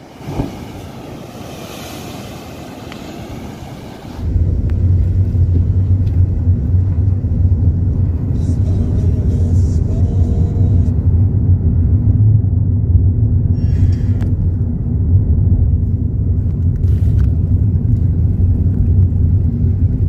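Sea surf and wind washing over a rocky shore. About four seconds in, this cuts to the steady low rumble of a car's interior while driving, which is the loudest sound.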